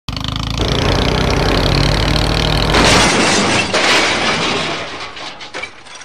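A steady engine rumble, then from about three seconds in a loud crashing, breaking noise that fades away toward the end: a crash effect for a toy vehicle tumbling into a dirt pit.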